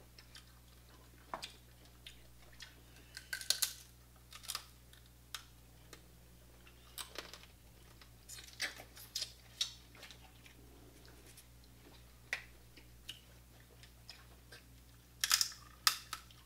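Crab leg shells being cracked and picked apart by hand, with irregular sharp cracks and clicks and a burst of louder cracks near the end.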